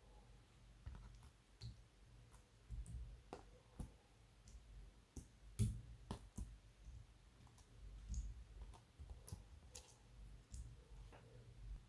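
Glossy slime being handled, giving faint, irregular sticky clicks and small pops, the loudest about halfway through.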